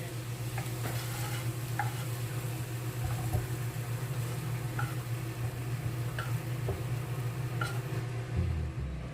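Chicken sizzling in a frying pan while a utensil stirs it, with light scrapes against the pan about once a second over a steady low hum.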